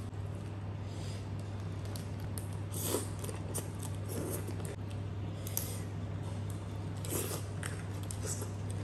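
Close-up eating sounds: chewing and wet lip smacks as crab meat is eaten by hand, with short clicks scattered through, over a steady low hum.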